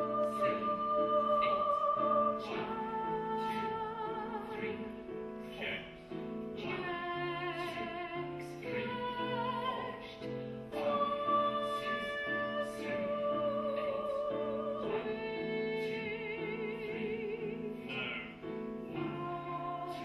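Female operatic singing with piano accompaniment: long held notes with vibrato, changing pitch every few seconds.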